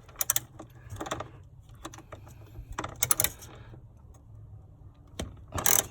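Ratchet with a 10 mm socket loosening the mounting bolts of an engine control unit, in several short bursts of rapid clicking, the loudest near the end.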